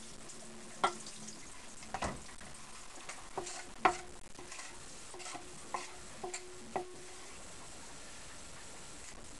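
A wooden butter paddle pressing and patting a lump of freshly churned butter on a wet surface: about ten irregular soft slaps and squelches, the loudest about four seconds in, stopping after about seven seconds. This is the working of the butter, which presses out the buttermilk.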